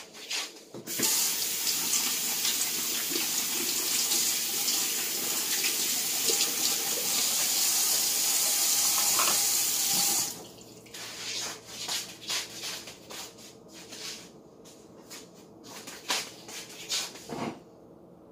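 Water running from a kitchen tap for about nine seconds, then shut off abruptly, followed by a scatter of light clicks and knocks.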